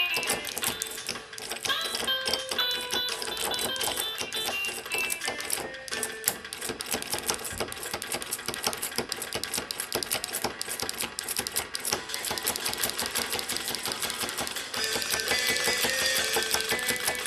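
Cheap 24 V pull-type solenoids driving a small dancing robot, clacking rapidly and unevenly as they jerk its head up and down. Music plays faintly underneath, and the clatter grows louder near the end.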